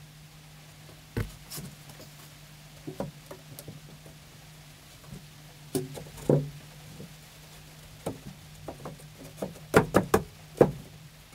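Plywood shelves and dividers being slid and pressed into a wooden rack by hand: scattered wooden knocks and light clatter, with a quick run of sharper knocks near the end. A faint steady low hum underneath.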